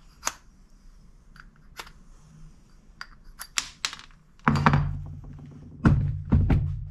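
Scattered light clicks and taps of a cordless drill and steel seat bracket being handled on a wooden workbench. About four and a half and six seconds in come louder knocks with a low rumble.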